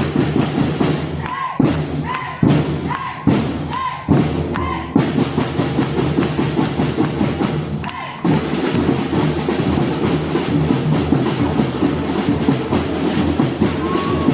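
Batucada samba percussion ensemble drumming loudly. In the first few seconds it plays a break of separate accented hits with short gaps, each met by a brief high call. The full groove takes over, stops briefly about eight seconds in, then comes straight back.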